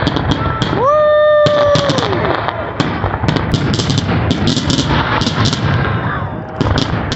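Fireworks going off in dense, rapid crackling pops. About a second in, a loud whistling tone starts, holds for about half a second and then drops away, and a fainter falling whistle comes later.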